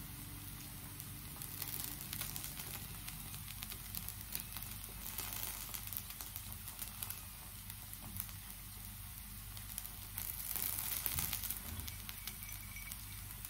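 Pancake frying in oil in a pan: a steady sizzle with fine crackling, swelling a little about ten seconds in.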